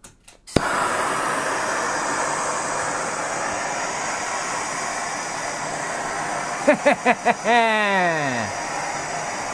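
Bernzomatic gas torch with a Searzall attachment lighting with a click, then its flame hissing steadily as the Searzall's mesh heats up. Near the end a man's voice breaks in: a few short sounds, then a long one falling in pitch.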